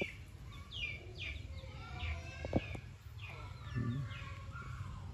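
Birds chirping in a run of short, falling chirps over a low rumble, with a single sharp click about two and a half seconds in.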